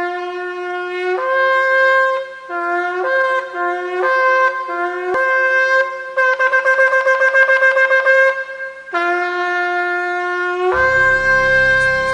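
A shofar (ram's horn) blown in a series of calls that switch between two notes, with a fast run of short staccato blasts in the middle and a long held note near the end. A low rumble comes in beneath the last note.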